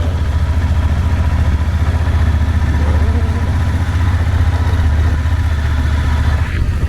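Motorcycle engine running steadily with a low, rapid pulsing.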